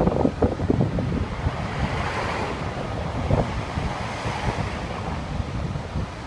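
Wind buffeting the phone's microphone with a rough, fluttering rumble, over the steady noise of road traffic.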